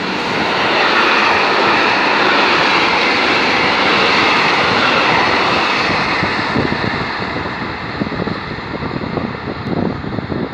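Intermodal freight train's container wagons rolling past at speed: a loud, steady rush of wheels on rail. It fades after the last wagon goes by about six seconds in, leaving scattered knocks as the train draws away.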